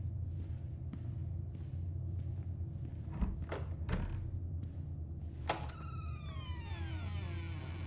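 A door swinging slowly: a sharp click about five and a half seconds in, then a long creak falling in pitch, turning to a high rasp near the end. Before it, soft footsteps at a walking pace and a few knocks over a steady low hum.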